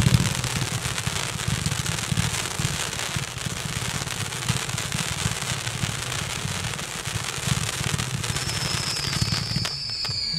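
A 500-gram multi-shot fireworks cake firing crackling comets: a dense, continuous crackle of many small pops. About eight seconds in, a whistle comes in and its pitch slowly falls.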